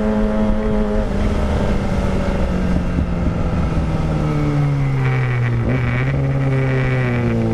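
Kawasaki ZX-25R's 250 cc inline-four through a Villan Pro 1 full-system exhaust, heard from the bike while riding. The engine holds a steady note for about a second, then its pitch falls slowly as the revs drop, with a brief hitch a little past halfway.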